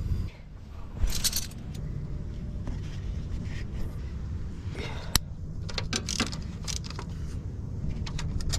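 Metallic clinking, jangling and scraping of hand tools and parts being handled in a car's engine bay, with a sharp click about five seconds in, over a steady low background hum.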